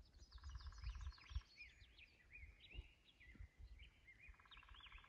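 Birds singing: a long run of quick, looping whistled notes rising and falling, with a lower buzzy trill near the start and again near the end.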